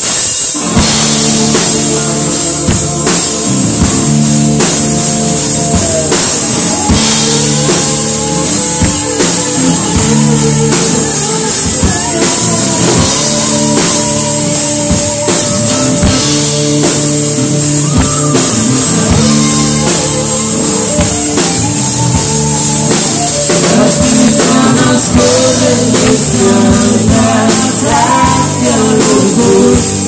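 Live rock band playing loudly: electric guitars, bass guitar and drum kit, with a voice singing over them.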